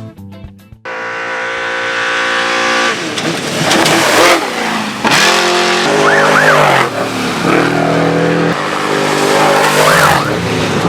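Off-road race vehicle engines running hard at full throttle, with tyres spinning and skidding in the dirt. The sound cuts in under a second in, and the revs rise and fall around the middle and again near the end.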